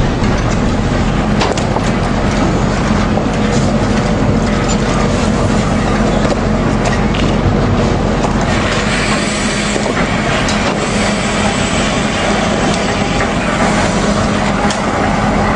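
Steady loud machinery noise from cargo-handling equipment and engines during a frozen tuna discharge, with a constant low hum, scattered sharp knocks in the first half, and a brighter hiss joining a little past halfway.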